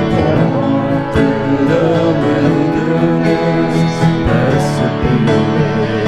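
Music: a song with a singing voice over guitar accompaniment.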